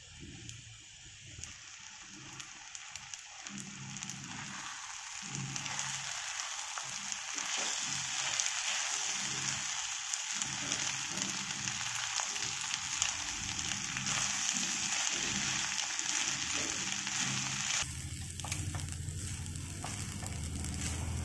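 Egg fried rice sizzling in a nonstick pan as it is stirred and tossed with a spatula. The sizzle grows louder a few seconds in and stops sharply near the end.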